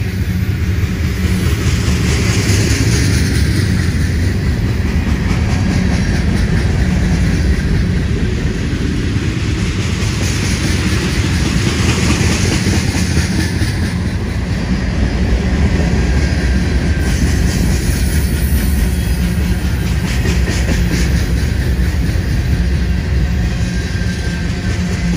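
Mixed freight train of hoppers, boxcars and tank cars rolling past close by: a steady, loud rumble of steel wheels on rail, with a run of wheel clicks a little past the middle.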